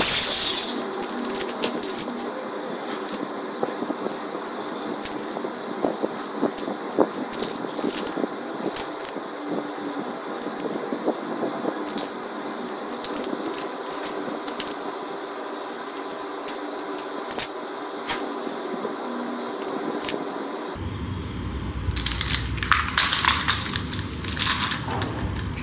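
A cordless drill runs and cuts off about half a second in. Then come light clicks and taps of plastic-and-metal RC retractable landing-gear units being handled, over a steady background hum.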